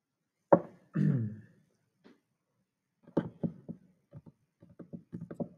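A sharp click, then a short low sound falling in pitch, then from about three seconds in a run of light, irregular knocks and taps, three or four a second.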